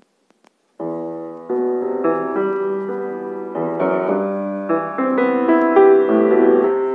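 Grand piano starting a piece about a second in after a couple of faint clicks, playing chords and melody that grow somewhat louder.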